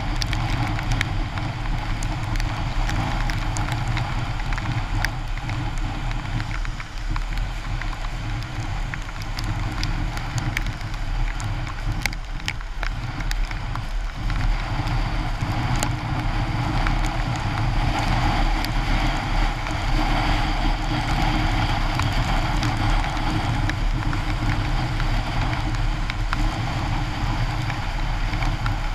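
Steady rush of wind, rain and wet-road tyre noise from a Yamaha X-City scooter riding at speed in heavy rain, with a low engine rumble underneath and scattered sharp ticks.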